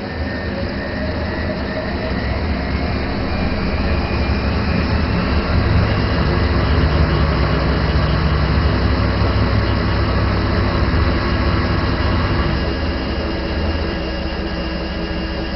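Washing machine running with a loud steady mechanical drone; its motor tones rise in pitch over the first few seconds as the drum speeds up, then hold steady.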